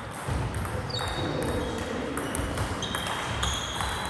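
Table tennis ball clicking off the bats and the table at irregular intervals in a rally, with brief high squeaks between the hits.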